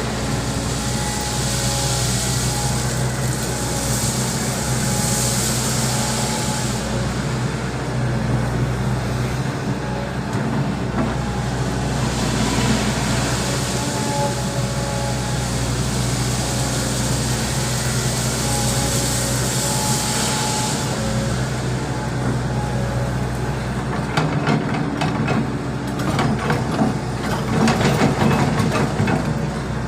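Volvo EC200D excavator's diesel engine running steadily under load, with hydraulic hiss rising and falling. Near the end, a run of clattering as stones knock and tumble.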